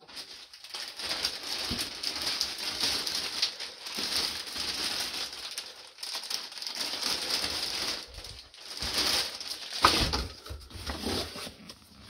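Packaging and a padded coat rustling and crinkling as they are handled and unpacked. There are heavier handling knocks around nine and ten seconds in.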